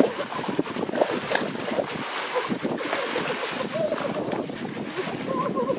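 Shallow water splashing and sloshing as a person wades and moves a wire-mesh trap through it, with wind noise on the microphone.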